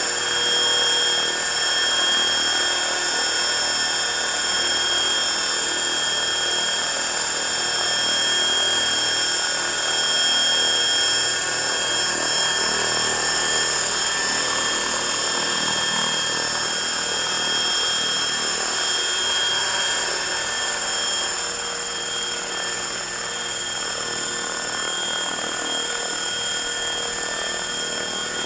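Frenzy 600E electric RC helicopter on a 5S battery hovering: a steady high-pitched whine from its brushless motor and drivetrain, with rotor noise underneath. The sound gets a little quieter in the last several seconds as the helicopter moves farther off.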